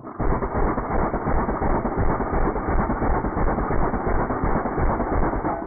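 Uzi submachine gun firing one long continuous burst of automatic fire, a dense rattle of shots lasting about five seconds, that stops near the end and leaves a fading echo.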